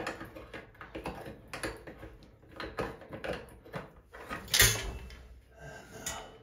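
Small clicks, taps and scrapes of hand tools working a stuck tub-faucet cartridge as it is twisted to break it loose, with one louder knock just past the middle. The cartridge does not budge.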